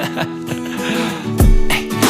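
Background music: a guitar-led pop track, with a heavy low beat coming in about one and a half seconds in.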